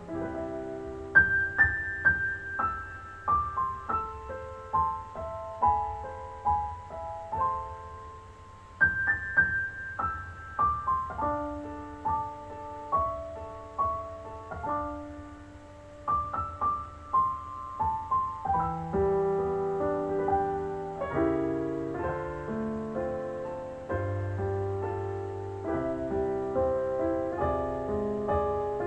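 Recorded music played through an 813 vacuum-tube amplifier: the instrumental piano break of a slow Thai ballad, its melody in falling runs of single notes, with low bass notes joining about two-thirds of the way through.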